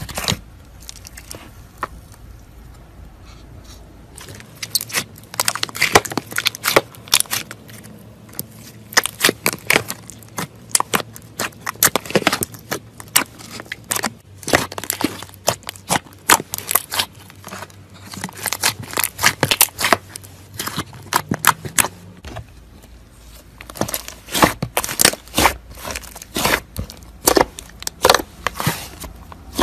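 Thick pink slime squished and kneaded by hand, making dense crackling and popping clicks in quick bursts with short pauses between.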